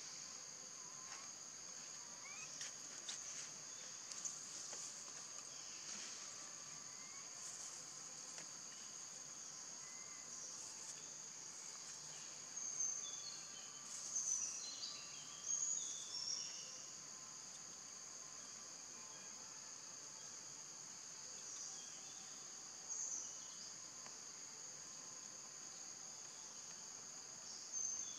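Steady high-pitched insect chorus holding two constant tones, with a few short high chirps about halfway through and again near the end.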